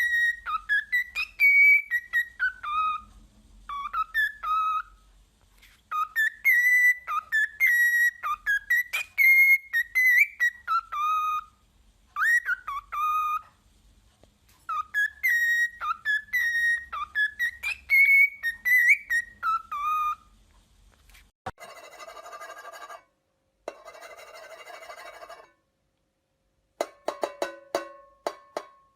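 A pet parrot whistling a melodic tune, the same phrase repeated several times with short pauses between. About two-thirds of the way through the whistling gives way to two stretches of a harsher, buzzier sound, and a few sharp clicks come near the end.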